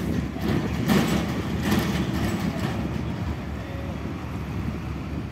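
A light cargo truck's diesel engine running as it drives slowly across the dock toward a ferry's loading ramp, with a steady low rumble and a few sharp clanks in the first two seconds.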